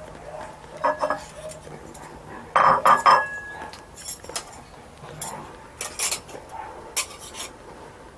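Spoons and plates clinking and clattering as people eat, with a louder clatter of dishes about two and a half seconds in and scattered clicks after.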